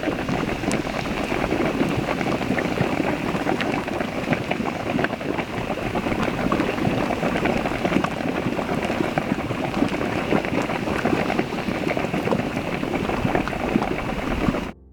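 Water bubbling and splashing in a steady, dense crackle of small pops.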